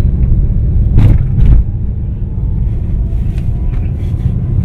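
Low, steady rumble of a car's engine and tyres heard inside the cabin while driving, with two sharp knocks about a second and a second and a half in.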